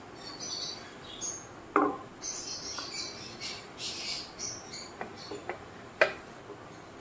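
Small birds chirping in short high bursts in the background, with two sharp knocks from kitchen things being set down on the worktop, the second as a wooden rolling pin is handled.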